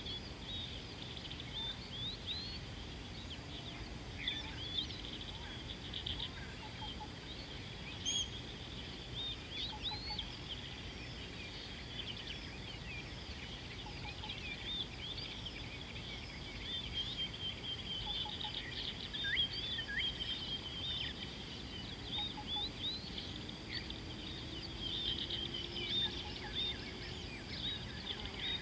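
A chorus of small wild birds chirping and trilling in many quick, short, high calls, over a steady low background rumble and a faint steady high hum.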